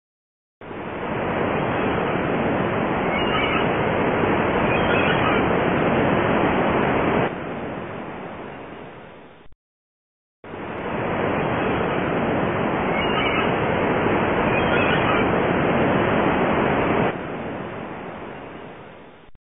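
Steady rushing sound of ocean surf, played as a short recording that fades and cuts off midway and then repeats the same way.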